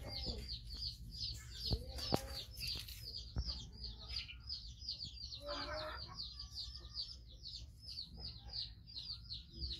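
Steady high chirping, repeated about five times a second, with a few sharp clicks in the first few seconds and a short lower call a little past the middle.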